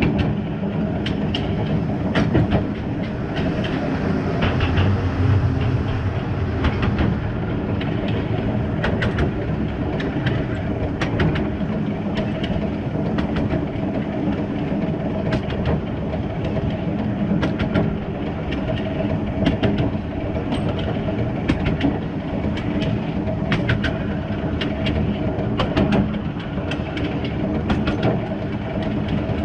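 1909 Budapest-built 0-6-0 well-tank steam locomotive running along narrow-gauge track: a steady low rumble of wheels and running gear, with frequent irregular clicks and knocks from the wheels on the rails.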